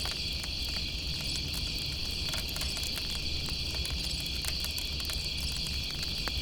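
Night insect chorus, a steady high-pitched chirring trill, with scattered soft crackles and pops from a campfire over a low steady background rumble.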